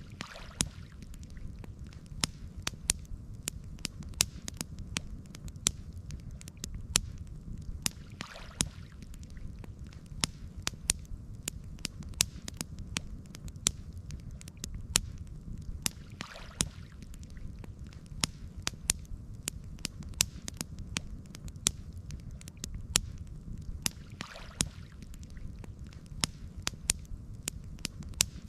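Campfire crackling: many sharp pops and snaps from the burning wood over a steady low rumble, with a soft whooshing swell about every eight seconds.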